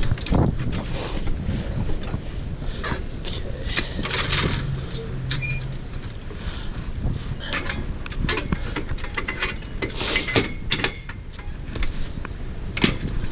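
Irregular knocks, clicks and scraping of a motorcycle wheel and tools being handled at a tyre-changing machine.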